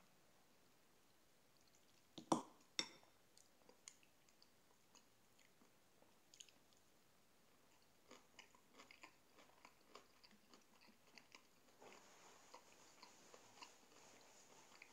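A person chewing a mouthful of food, faint wet ticks and smacks. A little after two seconds in, a metal fork clinks twice, sharply, against a dish.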